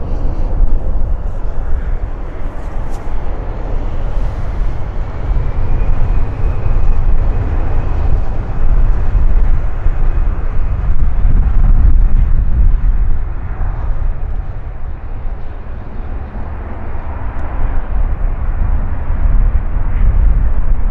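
An Airbus A350-900's Rolls-Royce Trent XWB jet engines during landing: a loud, steady low rumble of jet noise that swells and eases, with a faint thin whine above it for a few seconds.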